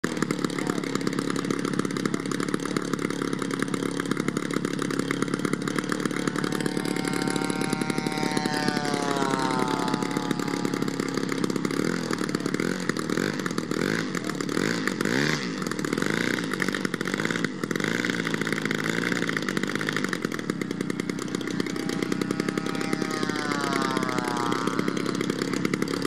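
The large RC biplane's GP-123 gas engine running steadily on the ground at a low setting. Twice, about 8 seconds in and again near the end, a second, higher engine note sweeps down in pitch.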